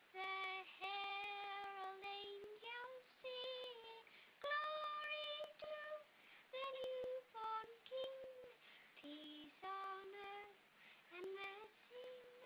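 A boy singing a slow song alone, holding long notes with short breaths between phrases. The faint clicks and crackle of an old film soundtrack run underneath.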